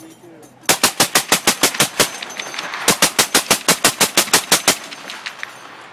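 Suppressed M2 Browning .50 BMG heavy machine gun firing full auto, fitted with an Ops Inc .50 cal suppressor: two bursts of about a second and a half each, about eight shots a second, with a short pause between them about two seconds in.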